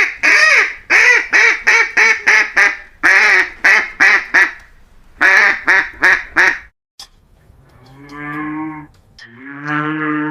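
A duck quacking in quick runs of short, loud quacks for about six seconds. Then a cow moos twice, two long, low moos near the end.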